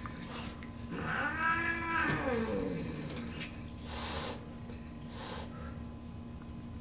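Domestic cat giving one long, wavering warning yowl about a second in, then two short hisses: a defensive warning at a dog close to its face.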